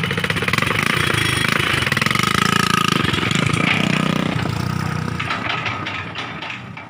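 Hitachi hydraulic excavator working: its diesel engine runs hard under load as the bucket dumps soil and swings down to dig into the pile. The sound fades out near the end.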